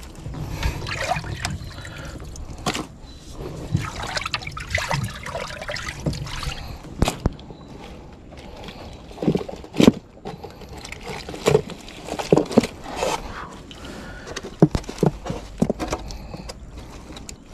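Water trickling and splashing, broken by scattered knocks and clicks, the sharpest about 7 and 10 seconds in.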